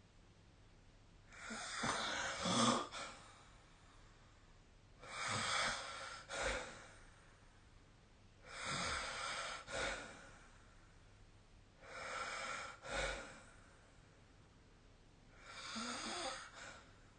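A sleeping person snoring: five snores, about one every three and a half seconds, each ending in a short, sharper burst.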